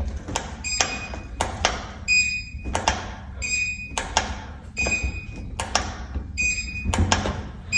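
Test button on a MyQ garage door sensor pressed repeatedly to test its new battery. Each press gives a click and a short high electronic beep, about six times, roughly one every second and a half.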